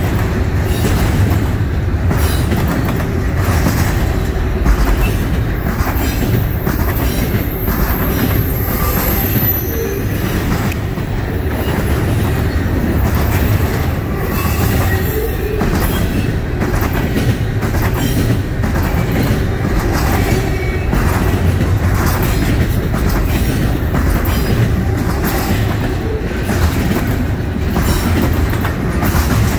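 Double-stack intermodal well cars rolling past close by: a steady, loud rumble of steel wheels on rail with repeated clicking over rail joints, and a brief faint high wheel squeal about eight seconds in.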